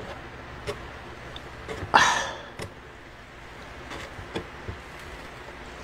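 Chopsticks stirring and tossing sauced cold noodles in a large instant-noodle tub, with light clicks of the chopsticks against the tub. One louder, brief rustle comes about two seconds in.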